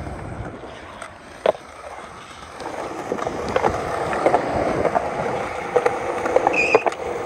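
Skateboard wheels rolling on concrete, the rolling noise growing louder from a few seconds in, with a sharp clack about a second and a half in and several lighter clacks near the end.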